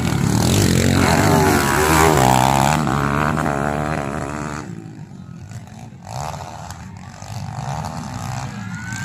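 Motocross dirt bike engine revving hard as it jumps past close by, its pitch swinging up and down with the throttle. The engine sound drops away sharply about halfway through, leaving a fainter dirt bike engine revving further off.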